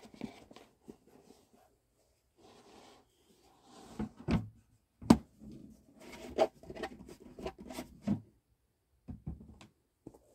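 Unboxing handling noises: a rigid cardboard gift box knocking and scraping on a wooden floor and a cotton dust bag rustling as it is pulled out, with a string of irregular knocks, the sharpest about five seconds in.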